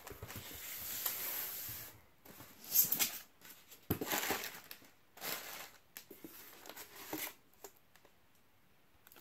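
Crumpled packing paper and newspaper rustling and crinkling as hands dig through a shipping box, with a few short knocks and scrapes of a polystyrene box and a plastic tub. The rustling is steady for the first two seconds, then comes in separate short bursts and dies down near the end.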